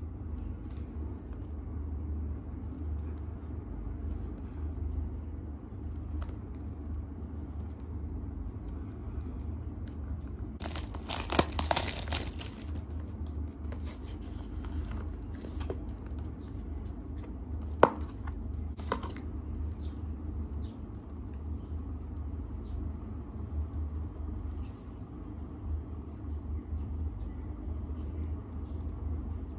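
Hands handling a small cardboard retail box and its packaging: scattered light taps and clicks, a burst of rustling and tearing about a third of the way through as the packaging is opened, and a single sharp click a little past the middle, over a steady low hum.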